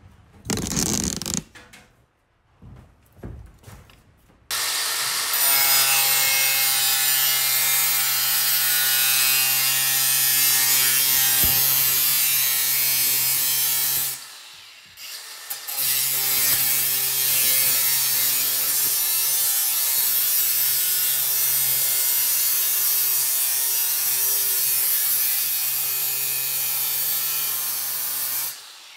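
Cordless angle grinder with an abrasive disc grinding metal: a steady whine of the motor over a strong hiss of abrasion, in two long runs with a pause of about two seconds midway.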